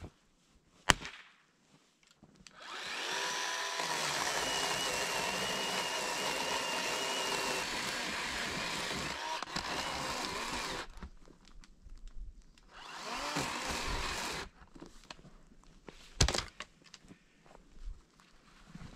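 Chainsaw speeding up about three seconds in and cutting through a fallen, snow-covered tree trunk for about eight seconds, then running up again briefly near fourteen seconds. A sharp knock about a second in and another near sixteen seconds.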